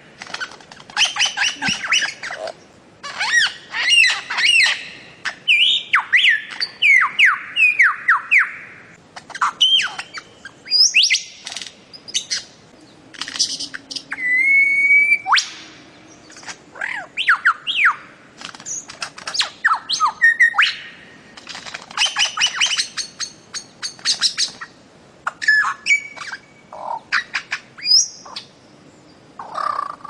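Bird-of-paradise (cendrawasih) calling: bursts of rapid, sharp squawking and whistled notes, broken by short pauses, with one held whistled note about halfway through.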